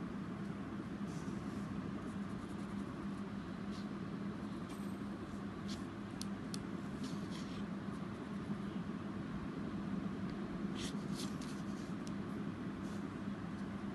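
Faint scratches, taps and rustles of a sheet of watercolour paper being handled and brushed over a steady low room hum.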